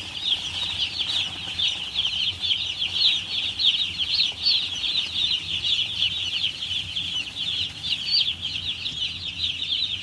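A brood of poultry chicks peeping all together: many short, high-pitched peeps overlapping without a pause.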